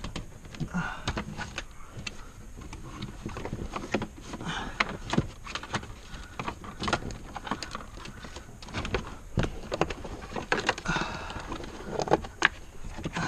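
Irregular clicks, knocks and rustling from car interior parts and wiring being handled and pulled during dismantling.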